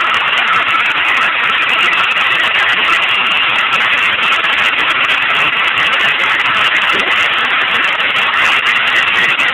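Hair dryer blowing steadily.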